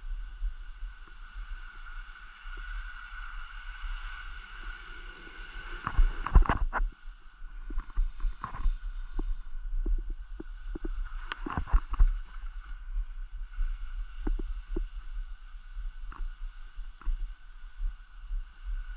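Skis moving over snow, with a steady scraping hiss and low wind rumble on the microphone, broken by scattered clicks and knocks of ski gear. The knocks are loudest about six seconds in and again around eleven to twelve seconds.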